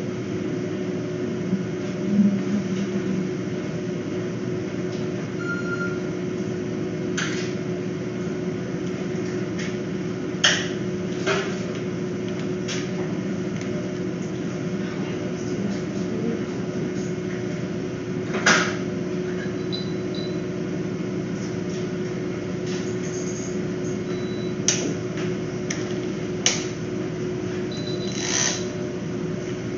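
A steady machine hum with one low held tone, broken by a few short sharp clicks and knocks, the loudest about ten and eighteen seconds in.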